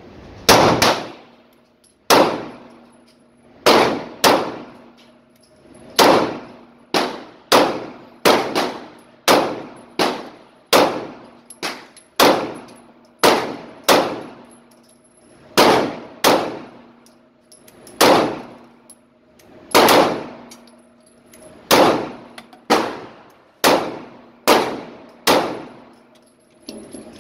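Pistol shots fired in an indoor range, about thirty over the stretch, singly and in quick pairs or strings from half a second to two seconds apart. Each shot is a sharp crack followed by a ringing echo off the range's walls.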